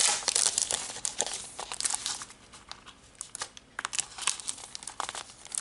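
A sticker pack in its clear plastic sleeve crinkling as hands handle and open it. Dense crinkling for the first second or so, then scattered crackles.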